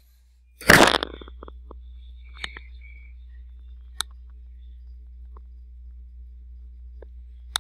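A short, loud burst of noise about a second in, then a few faint, scattered clicks from a computer mouse as the page is scrolled, over a steady low hum.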